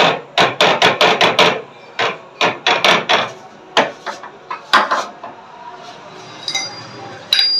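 Sharp metallic knocks on steel motorcycle front fork tubes being worked in a straightening jig: a quick run of about seven blows, then scattered clusters of knocks, and a brief high metallic ring near the end.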